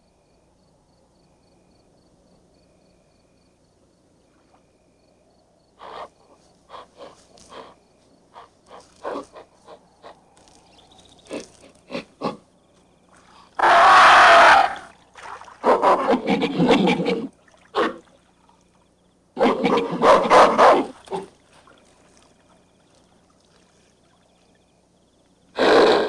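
Chimpanzees screaming: short calls at first, then four loud, harsh bursts of one to two seconds each, the first about halfway through.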